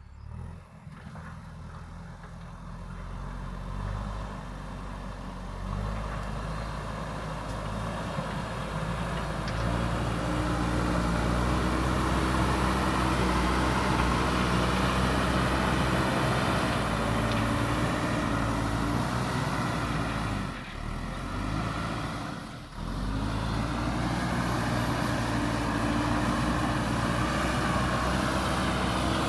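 JCB backhoe loader's diesel engine working under load. It grows louder over the first ten seconds, then runs steadily, dipping briefly twice about two-thirds of the way through.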